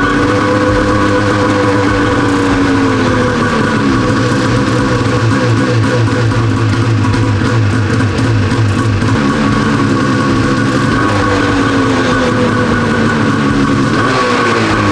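Turbocharged two-stroke 800 snowmobile engine running on its stand, revved up and down in slow swells several times, freshly fitted with new stock reed valves. Background music with guitar plays over it.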